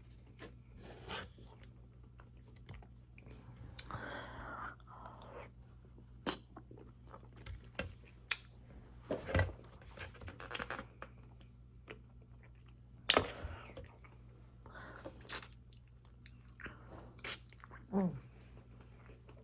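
Close-up chewing and mouth sounds of someone eating soft cottage cheese and pear halves, with scattered sharp clicks and smacks.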